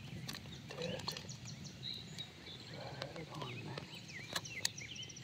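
Small birds chirping and trilling, many short rising and falling calls and a quick repeated trill, with a few sharp clicks as a hunting tag is handled and fastened.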